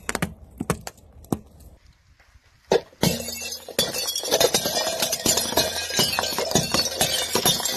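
A few sharp clicks, then, about three seconds in, a car tyre crushes a stack of white ceramic plates. A loud crack opens a dense, continuous crunching and clinking as the plates shatter and grind into shards under the rolling tyre.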